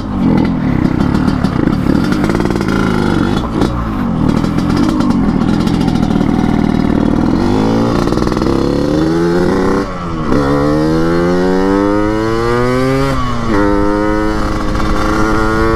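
Yamaha RX-King two-stroke single-cylinder engine with a chrome under-belly expansion-chamber exhaust and open air filter, set up for a rough 'ngorok' note. It burbles unevenly at low revs, then accelerates hard. Its pitch climbs, drops at a gear change about ten seconds in, climbs again and drops at another shift about thirteen seconds in.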